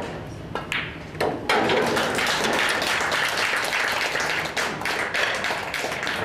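A pool cue ball is struck and balls click near the start. Then, from about a second and a half in, a small audience claps steadily for several seconds, applause for the rack-winning shot.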